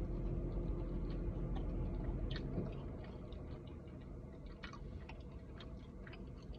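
Close-up chewing with scattered wet mouth clicks and smacks, over a steady low hum that drops away a little under halfway through.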